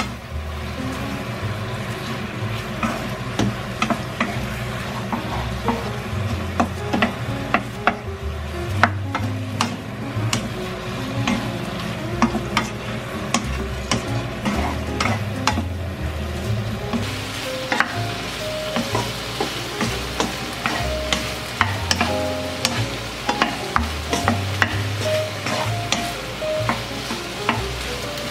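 Sauce-coated fried chicken pieces being stirred and tossed in a nonstick frying pan: the utensil clicks and scrapes against the pan over a steady sizzle of the bubbling sauce. The sizzle grows louder a little past halfway.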